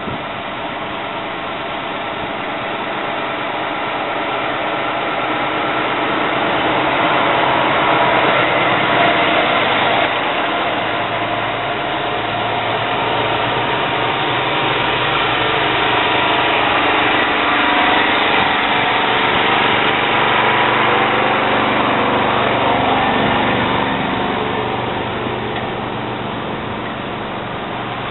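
Diesel engine of a heavy-haulage prime mover running as it pulls a long wind turbine blade trailer slowly past. The sound builds over the first several seconds, stays loud through the middle as the trailer goes by, and eases off over the last few seconds.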